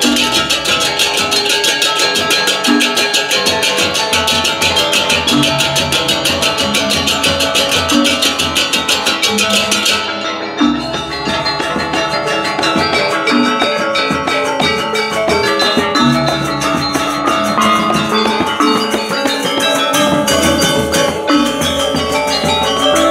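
Balinese gamelan gong ensemble playing a lelambatan piece: bronze metallophones and kettle gongs ringing with kendang drum strokes, over rapid clashing of ceng-ceng kopyak hand cymbals. The cymbals stop abruptly about ten seconds in, and the metallophones, gongs and drums play on.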